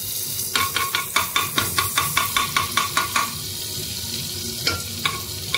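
Metal spoon tapping rapidly against the rim and side of a steel cooking pot, about five ringing taps a second for some three seconds, knocking a lump of butter off into the pot, then two or three more taps near the end, over a steady hiss.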